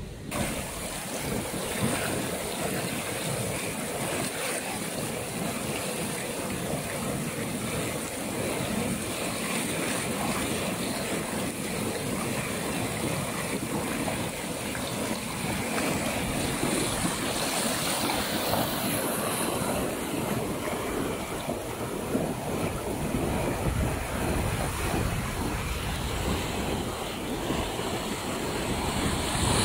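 Fast mountain river rushing over whitewater rapids, a steady loud rush of water, with wind gusting on the microphone.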